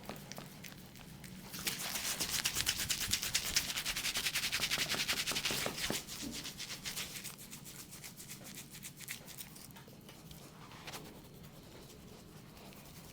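Hands rubbing briskly over hair and scalp in quick strokes, about ten a second, loudest for a few seconds near the start, then softer and sparser.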